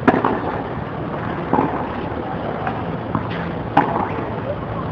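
Tennis ball struck by rackets during a doubles rally on a clay court: a few sharp pops, the loudest at the start and just under four seconds in, over a steady background noise.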